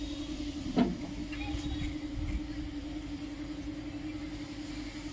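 A steady mechanical hum with a low rumble beneath it, and one short, louder sound a little under a second in.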